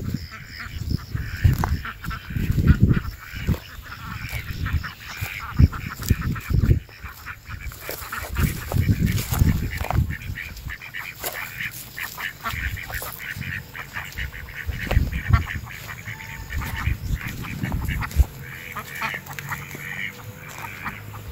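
Waterfowl calling repeatedly, with honking, quacking calls, over footsteps crunching on dry, cracked earth and brushing through dry scrub, with irregular low thuds.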